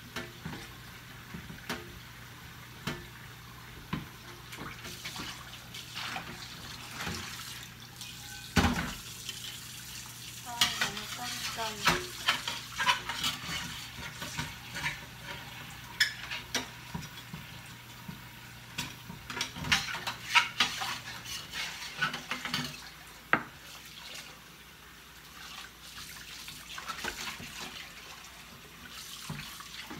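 Dishes being washed by hand in a stainless steel sink: plates and cutlery clinking against each other and the sink, over running water. The clinking comes thickest through the middle.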